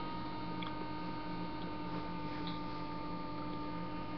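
Steady electrical hum with a thin constant whine above it, with two or three faint ticks.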